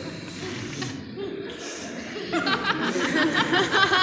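Audience murmuring, then breaking into laughter a little over two seconds in.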